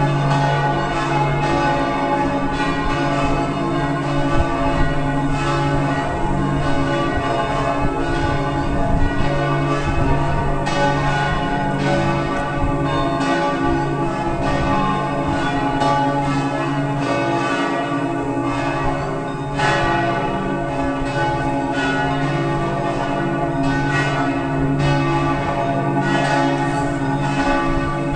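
Several church bells ringing together in a continuous peal, strike after strike with long overlapping ringing.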